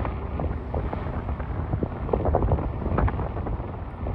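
Pilatus PC-12 NG's single PT6A turboprop engine and propeller droning overhead as the aircraft climbs away after takeoff: a deep rumble with a crackling edge, a little quieter near the end.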